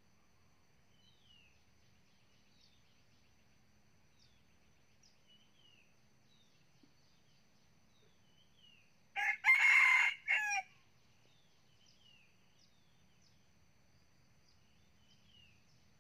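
Red junglefowl rooster crowing once, about nine seconds in: a short first note, a long middle note and a clipped last note. Faint short falling bird chirps and a thin steady insect tone sound behind it.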